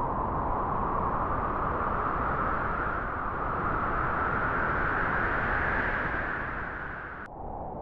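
Wind blowing through grass, a steady rushing that swells slowly, eases off and cuts out abruptly near the end.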